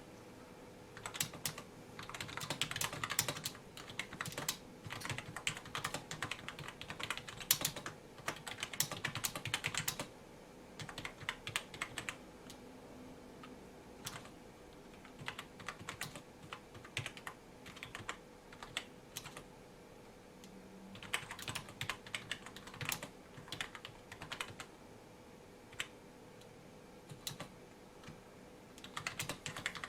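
Typing on a membrane (rubber-dome) gaming keyboard: quick runs of soft key presses, with brief pauses between bursts and busier stretches near the start and about two-thirds in. The keys have no click switch, so each press is a smooth, muffled bottoming-out tap.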